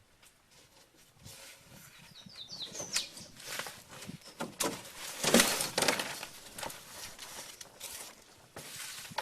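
Irregular knocks, scrapes and rustling from a heavy object being handled and shifted, loudest about five seconds in, with a few short high chirps near the start.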